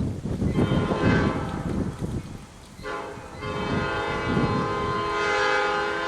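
Air horn of a Baldwin S12 diesel switcher locomotive sounding two blasts, a shorter one and then, after a brief gap, a longer one, over a low rumble.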